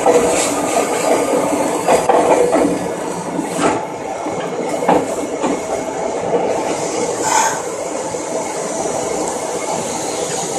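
Nagoya Municipal Subway 3000 series train running: a steady rumble of wheels on rail, broken by a few sharp clicks.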